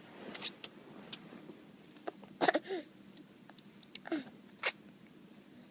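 A string of short, sudden hiccups, the loudest about halfway through, several with a brief squeak of voice.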